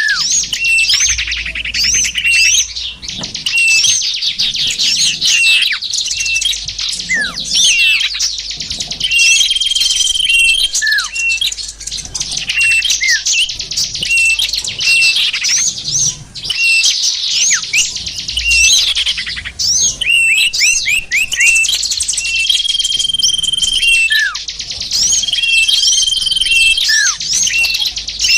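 Dense, loud chirping and twittering of small birds, played as a bird-trapping lure call (suara pikat) to draw small birds in. Quick falling trills and short held whistles recur every few seconds.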